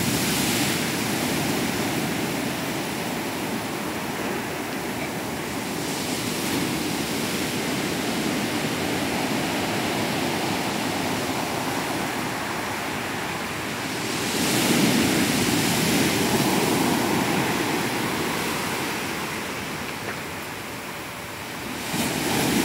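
Rough sea surf: waves breaking and washing up the beach in successive surges of rushing noise, the loudest break about two-thirds of the way through and another starting near the end.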